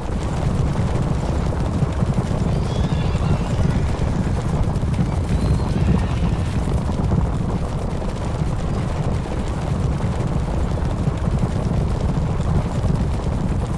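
A herd of horses running: a continuous dense rumble of many hooves, with a few faint whinnies about three and six seconds in.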